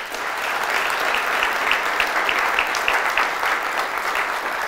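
Audience applauding: the clapping swells in quickly and holds steady, with one clapper's claps standing out at about three a second.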